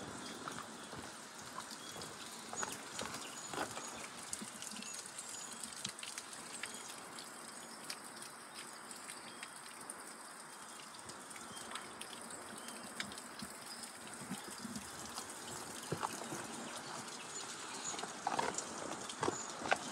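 Footsteps of a hiker walking a forest trail, irregular and growing more frequent in the last few seconds, over a steady outdoor background with faint, short, high bird chirps.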